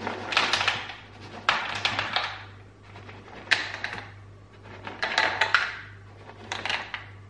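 Dry dog kibble poured from a tub into small plastic bowls, the pieces clattering and rattling. It comes in five short pours, each about half a second long, spaced a second or so apart.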